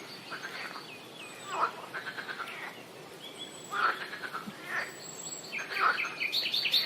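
Swamp ambience: several birds calling in quick runs of short chirping notes, some sweeping down in pitch, every second or two over a steady background hiss.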